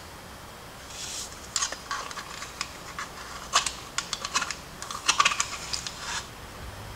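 Thin crinkly material handled in the hands: a run of irregular crackles and rustles that starts about a second in and stops about a second before the end.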